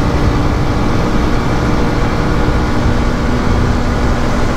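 Motorcycle under way at a steady pace: the engine's steady hum over a dense rumble of wind and road noise, with no change in speed.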